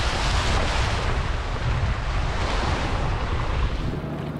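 Strong wind buffeting the microphone on the deck of a sailboat under sail, a loud rumbling rush. Near the end it cuts off abruptly to a quieter, steady low hum.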